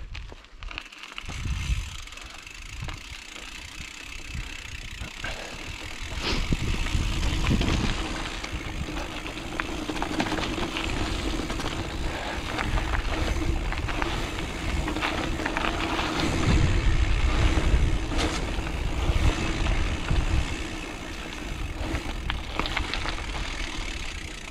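Rigid mountain bike ridden fast downhill without braking: knobbly tyres rumbling over rough dirt and rocks, with rattles and knocks from the unsuspended frame. A steady hum joins in about six seconds in as speed builds.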